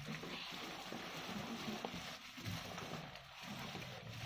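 Plastic bag rustling and crinkling as loose, damp earthy substrate is tipped out of it onto a plastic tarp, a soft continuous hiss of sliding crumbs.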